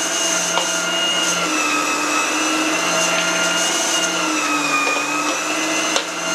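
Electric kitchen machine running its meat-grinder attachment, grinding fresh cilantro and parsley. A steady motor whine, its pitch dipping slightly twice.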